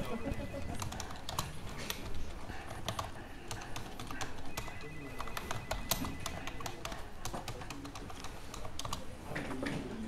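Typing on a computer keyboard: irregular keystroke clicks, with a few sharper clacks now and then.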